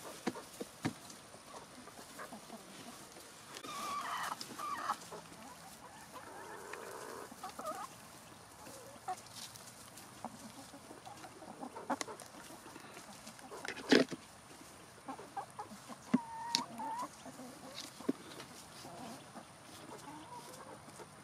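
Chickens clucking softly while they feed, with scattered sharp taps from pecking throughout.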